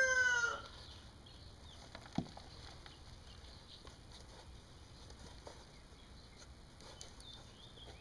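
The end of a rooster's long crow, its pitch falling away within the first second. Then quiet, with one soft click about two seconds in.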